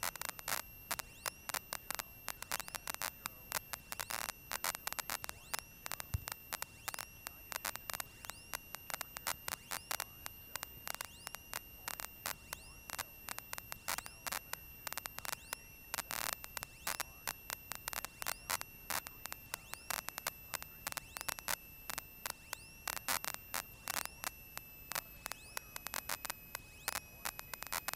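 Crackling static of irregular sharp clicks over a steady high-pitched whine on a Cessna 172's cockpit audio feed, with no engine roar. The whine drops slightly in pitch near the end.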